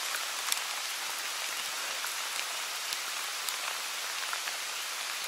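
Steady rain falling, an even hiss with a few scattered sharp drop ticks.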